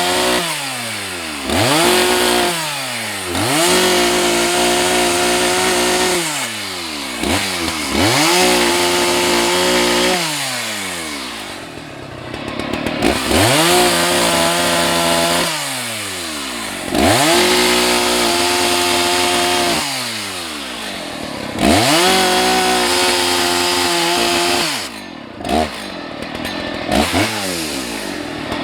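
Husqvarna 181 SE two-stroke chainsaw, revved up to full throttle and held for a couple of seconds, then let back down to idle, about six times over. This is the pattern of making a series of cuts through firewood.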